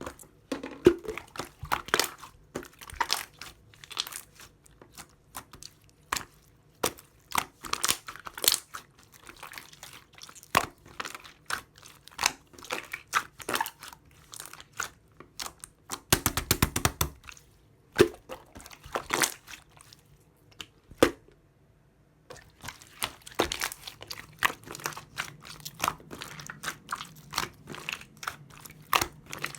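Close-up chewing and biting of grapes with a jelly-like texture: irregular wet crunches and crackles, with clusters of rapid crackling about 16 seconds in and a brief lull a little after 20 seconds.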